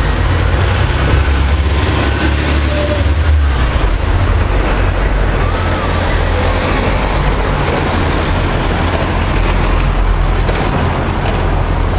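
Steady low rumble of road traffic, with an even hiss over it and no clear single event.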